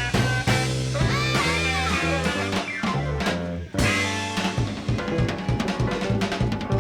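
Live electric blues band playing an instrumental passage of a slow blues: bending electric guitar lines over a held bass, with the drums coming forward in a steady, even beat from about halfway in.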